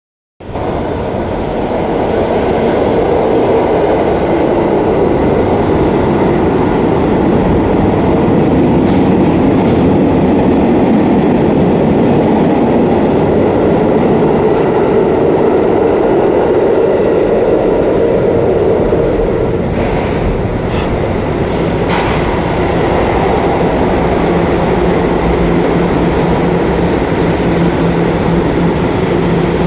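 Subway garbage train running through the station without stopping: a loud, steady rumble and clatter of steel wheels on rails, with a few brief squeals around the twenty-second mark.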